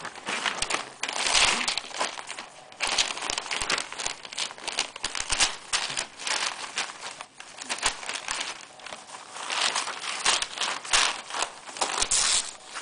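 Newspaper pages rustling and crinkling in irregular bursts as cats play on and around the spread-out sheets.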